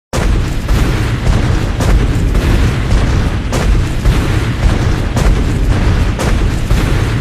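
A loud sound-effect rumble that starts suddenly out of silence: a deep, noisy boom with several sharp crackling hits through it, held for about seven seconds and starting to fade near the end.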